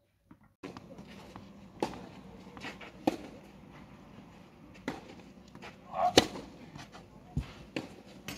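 Tennis ball being hit back and forth with racquets in a rally on a clay court: a series of sharp pops about every one to two seconds, the loudest about six seconds in.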